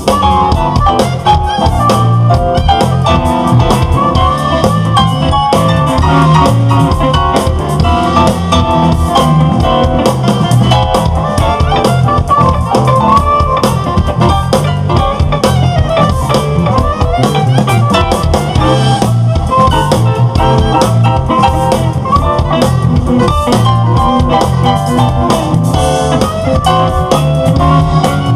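Live jazz-rock fusion band playing an instrumental: electric guitar over electric bass and drum kit, with keyboards and saxophone in the band.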